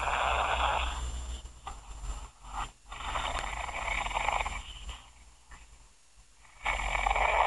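A man's very loud snoring, recorded on a phone and played back through its small speaker. Three long snores come about three seconds apart.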